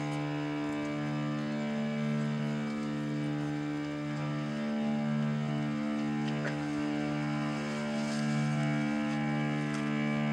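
Cello bowed in long sustained notes: a low note re-bowed about once a second under a steadily held higher note, giving a droning texture.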